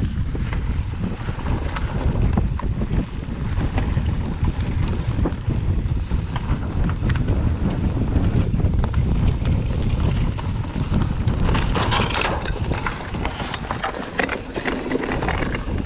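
Wind buffeting the microphone while a Canyon Neuron full-suspension mountain bike rides downhill, with tyres rumbling over dirt and rock and the bike rattling and clicking over bumps. About twelve seconds in, a louder stretch of scraping and clattering.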